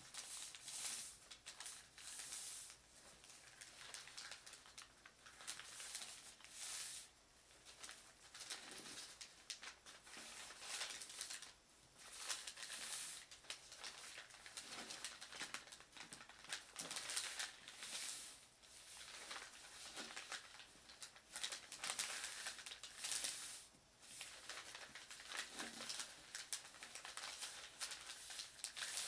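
Thin wrapping paper rustling and swishing under the hands as it is folded into pleats and its creases are pressed flat, in irregular strokes of about a second each.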